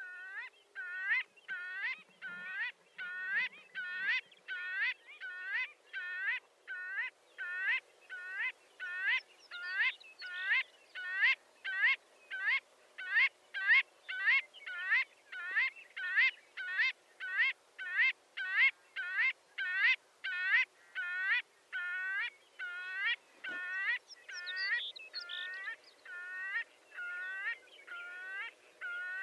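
Marbled godwit calling over and over in a steady rhythm, about three hooked, nasal calls every two seconds.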